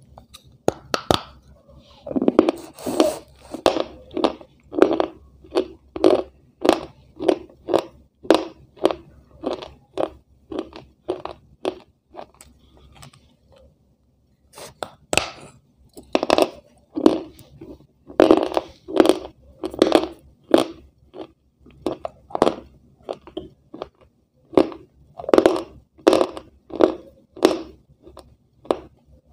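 A person biting and chewing a thin white sheet with her mouth close to the microphone: crisp crunching chews at about two a second, stopping for about two seconds near the middle and then resuming.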